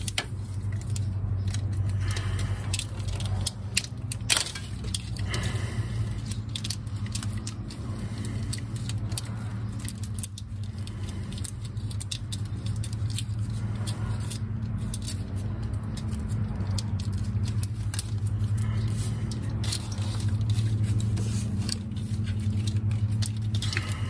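Irregular light clicks, rattles and rustles of plastic corrugated wiring loom and a plug-in connector being handled and worked onto a wiring harness, over a steady low hum.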